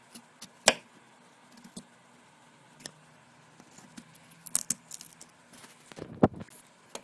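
Scattered clicks, taps and knocks of hands probing a cut-open muskmelon at close range. There is a sharp knock under a second in, a small cluster of clicks past the middle, and another strong knock near the end.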